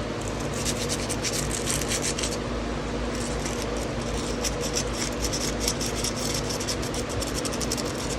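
Fine wet/dry sandpaper rubbed back and forth by hand on a rusty carbon-steel knife, a run of quick scratchy strokes, scrubbing off rust and grime. A steady low hum runs beneath.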